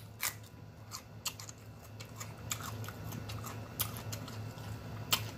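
A man biting into a whole jalapeño pepper and chewing it close to the microphone: irregular crisp crunches and mouth clicks.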